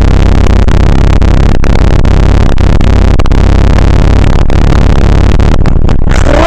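Loud, steady rushing noise, near full level and distorted, broken by a few brief dropouts.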